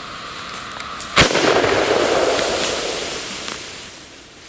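An aerosol can packed with potassium nitrate and sugar rocket fuel firing: a hiss as it ignites, then a sharp bang about a second in as the thin can bursts, followed by a loud rushing hiss of burning fuel that fades away.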